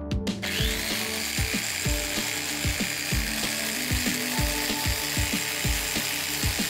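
Background music with a steady beat of about two thumps a second and held notes over it.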